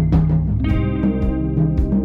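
Band music with no singing: plucked guitar and bass playing held notes over percussion hits roughly every half second.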